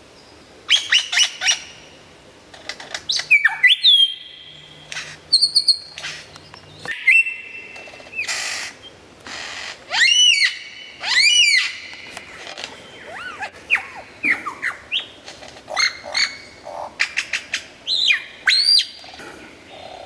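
Lyrebird singing a loud, varied song: quick runs of sharp clicks, swooping and arching whistles, and a few held whistled notes, one after another with short gaps.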